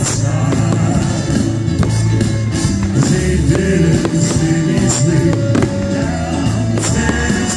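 Music with a steady bass line and percussion plays throughout, with the scattered pops and crackles of aerial fireworks shells bursting overhead.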